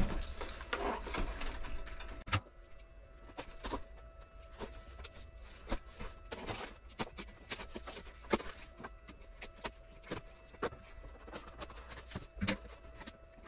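A long cardboard shipping box being cut open with a small knife and handled: irregular scrapes, clicks and taps of the blade on tape and cardboard and of hands on the box.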